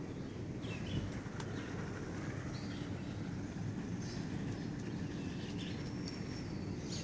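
Small birds chirping faintly a few times in woodland over a steady low outdoor noise, with the walker's footsteps on a muddy trail.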